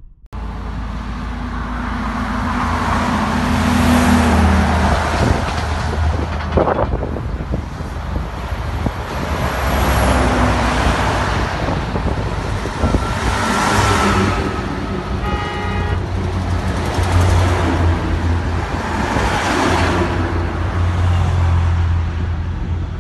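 Road traffic on a highway: vehicles passing one after another, each swelling and fading, with a short horn toot about fifteen seconds in.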